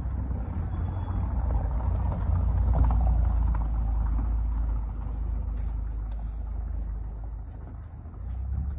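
Street noise with a low rumble that swells to its loudest about three seconds in and then eases off.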